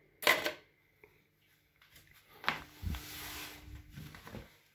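A sharp clack about a quarter second in as the glass snail trap knocks inside a plastic measuring jug. Later comes about two seconds of noisy handling sound with a few low thuds.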